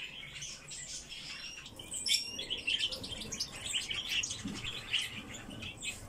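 Pet birds indoors chirping and calling, with many short high calls in quick succession.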